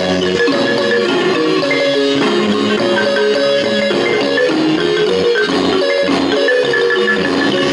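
Marimba music: a quick melody of short mallet-struck notes over lower bass notes, at a steady level.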